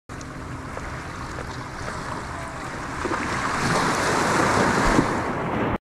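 Sea surf washing and splashing against the concrete tetrapods of a breakwater, growing louder about three seconds in.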